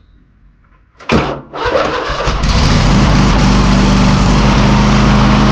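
Toro TimeCutter zero-turn mower's Kohler engine starting about a second in, cranking briefly, then catching and settling into a loud steady run.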